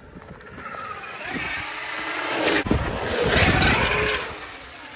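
Traxxas X-Maxx 8S brushless electric RC monster truck accelerating across concrete. Its motor and gear whine rise in pitch, and the whine and tyre noise grow louder to a peak past the middle before falling away. There is a sharp knock about two and a half seconds in.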